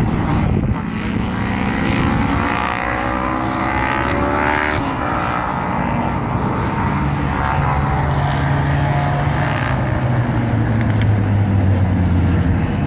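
Vintage racing motorcycle engines running on the circuit. One rises steadily in pitch as it accelerates during the first half, then a lower, steadier engine note sags slightly in pitch near the end.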